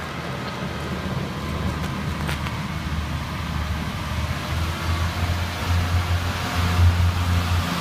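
Northern Rail Pacer diesel railbus running past, a steady low engine hum that grows louder over the last few seconds as the unit comes close.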